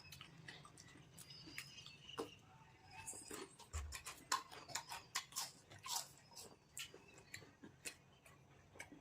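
A person eating fruit: irregular wet chewing, smacking and mouth clicks.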